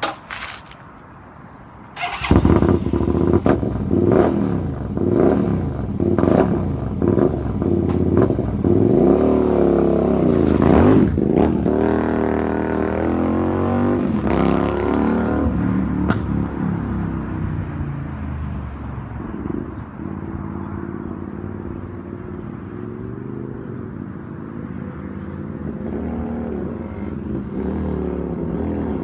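Naza Blade (Hyosung) V-twin motorcycle engine cutting in suddenly about two seconds in and revving repeatedly, its pitch rising and falling. From about halfway it settles to a steadier, lower running note that climbs slowly again near the end.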